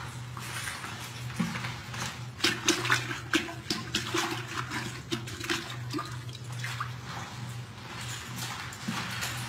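Water splashing and sloshing in a string of irregular splashes, thickest in the middle few seconds, over a steady low hum.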